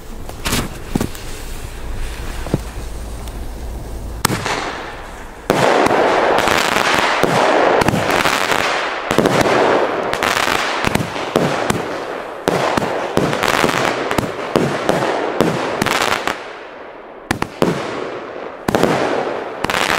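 A firework cake firing aerial shots into the night sky. After a few scattered pops, a dense, continuous stream of launches and crackling bangs begins about five seconds in and runs for about ten seconds. It then thins to separate pops, with more bangs near the end.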